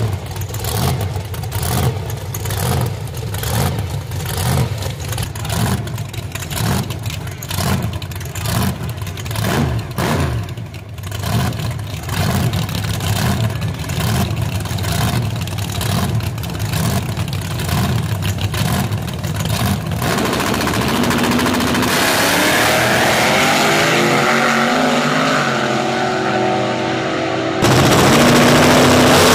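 Supercharged big-cam drag-race V8 idling with a heavy, uneven lope. About twenty seconds in it gives way to engines revving up and down as the cars stage, and it gets louder near the end.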